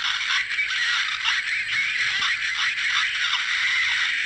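Tinny electronic music and sound effects from the small speaker of a bootleg Kamen Rider Ex-Aid toy transformation belt, with almost no bass. The sound effects are the original official ones, not the usual off-key bootleg sounds.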